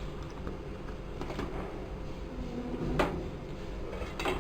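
Kitchen utensil handling over a steady low hum: a single sharp clink about three seconds in.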